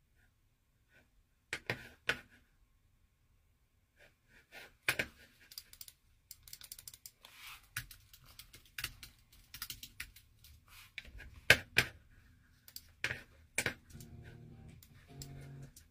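Irregular clicks and taps, like typing on a keyboard, close to the microphone. A few held pitched notes come in about two seconds before the end.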